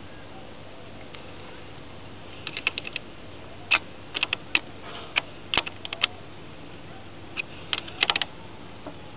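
Irregular sharp clicks, some single and some in quick runs of four or five, with no engine cranking or running.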